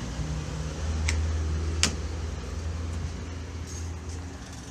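A steady low mechanical hum, with two sharp clicks about a second and two seconds in.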